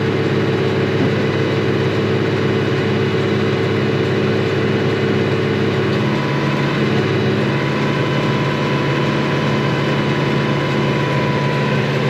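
International Harvester 3288 tractor's diesel engine running steadily while it drives a John Deere 567 round baler through the PTO, heard from inside the tractor cab. The engine's tone shifts about halfway through.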